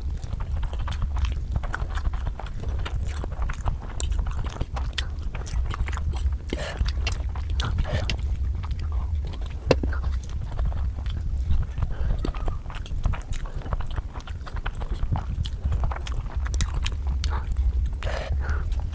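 Close-miked eating sounds: a person chewing and biting food, with many quick wet clicks and crunches from the mouth, over a steady low hum.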